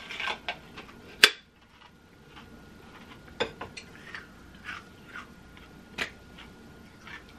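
Sipping through a straw from an ice-filled plastic tumbler, followed by a few sharp clicks and knocks, the loudest about a second in.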